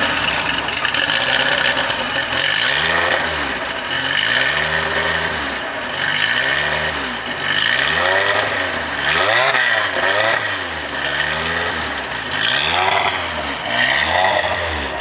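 Fiat X1/9's four-cylinder engine revved through its exhaust in repeated blips, about one a second, each rising and falling in pitch.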